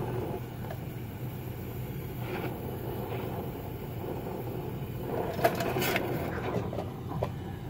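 Oxy-fuel cutting torch flame running steadily as it heats the broken shock bolt nut cherry hot before cutting it off, with a brief louder rush about five and a half seconds in.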